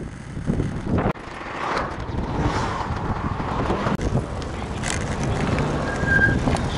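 Wind on the microphone and city traffic noise while cycling, with abrupt jumps in level where the footage is cut. A short high tone sounds near the end.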